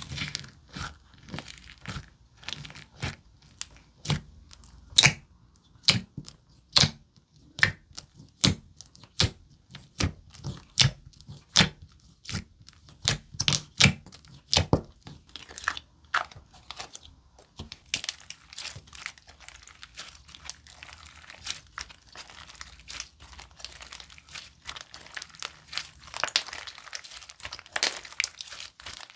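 Handled Crouton Cookie Chip slime (a biscuit-scented slime made from Amazon, iglue, plumo and tacky bases) giving a run of sharp, crisp pops at about two a second. Over the last third the pops give way to a denser, finer crinkly crackle.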